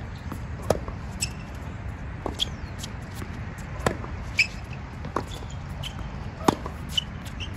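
Tennis ball being struck by rackets and bouncing on a hard court during a baseline rally: a string of sharp pops a second or two apart, the loudest being the near player's racket hits.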